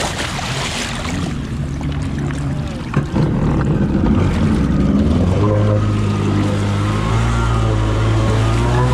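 Kawasaki 550 two-stroke stand-up jet ski engine running while water splashes over the deck, with a short thump about three seconds in. From about five seconds in the engine pulls steadily, its pitch edging up as the ski gets underway.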